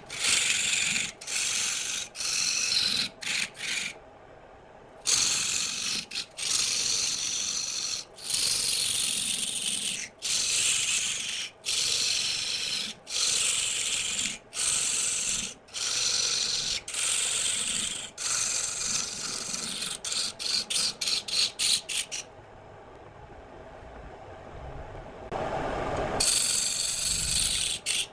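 Wooden vase blank spinning on a woodturning lathe with a tool rubbing against the wood, a steady rasping hiss. It stops and starts abruptly many times, with two quieter stretches about four seconds in and just after twenty-two seconds.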